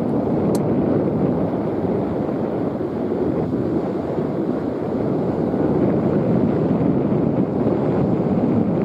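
Steady rushing noise of wind buffeting the microphone, without any engine tone.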